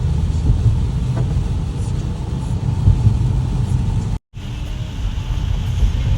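Steady low road and engine rumble of a car being driven, heard from inside the cabin. The sound cuts out completely for a moment about two-thirds of the way through, then resumes.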